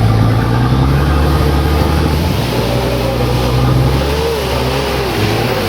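Off-road 4x4 engine running steadily at low revs, with a wavering higher tone over it in the second half.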